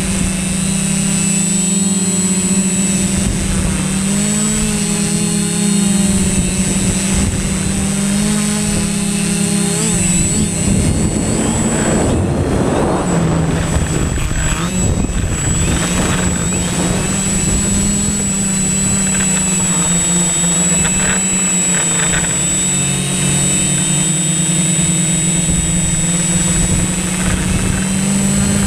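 Drone's propellers and motors buzzing steadily, the hum shifting slightly up and down in pitch, over a thin steady high whine. A stretch of rushing noise runs through the middle.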